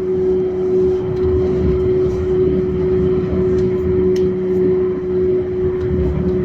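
Yurikamome automated rubber-tyred train running at steady speed, a constant whine from its drive over a low rolling rumble, heard from on board.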